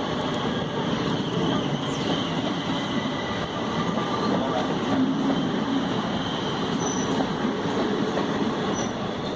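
Passenger train rolling past on the rails in a steady rumble, with faint high wheel squeals, briefly twice near the end.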